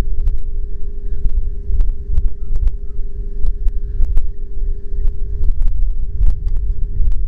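Fiat Grande Punto's turn-signal ticking, sharp clicks about two or three a second, over a heavy low rumble and a steady hum.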